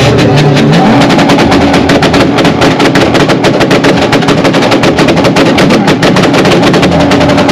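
A race car engine held on its rev limiter, the exhaust crackling in a rapid, unbroken run of loud pops that starts and stops abruptly.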